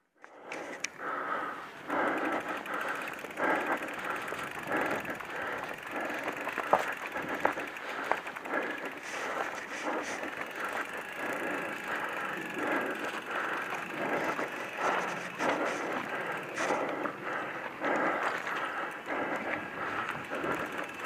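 Mountain bike rolling along a dirt forest trail: a steady rough crunch of tyres on the sandy ground, with scattered small knocks and rattles from the bike over bumps.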